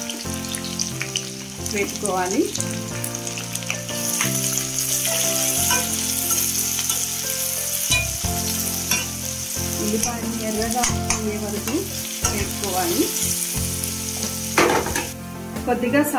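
Chopped onions, dried red chillies, green chillies and curry leaves sizzling as they fry in hot oil in a stainless steel kadai, with a metal spoon clicking and scraping against the pan as they are stirred. The sizzle grows louder about four seconds in and drops back near the end.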